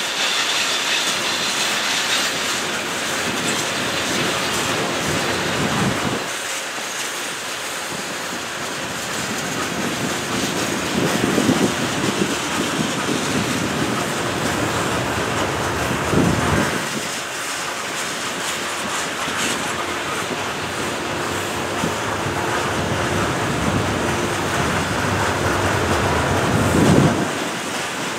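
Freight cars of a mixed freight train rolling past: a steady rumble of steel wheels on rail with clickety-clack over the rail joints, swelling and easing every few seconds as cars and trucks go by.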